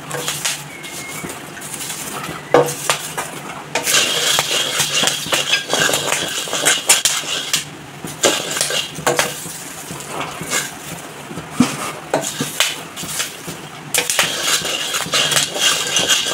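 Wooden spatula stirring popped popcorn and unpopped corn kernels in a wok, the kernels rattling and scraping against the pan, with many sharp clicks throughout. The scraping is densest a few seconds in and again near the end.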